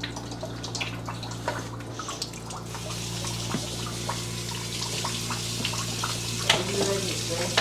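Sewage-smelling wastewater from a cut-open drain line draining and dripping into a bucket, a steady trickle with scattered drips, over a steady low hum. A sharper knock comes about six and a half seconds in.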